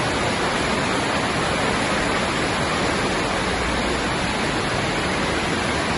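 Steady rush of muddy floodwater surging fast along a flooded street.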